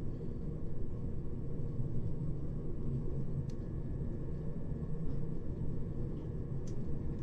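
Running noise heard inside a Class 377 Electrostar electric train at speed: a steady low rumble from the wheels and running gear, with two faint clicks in the second half.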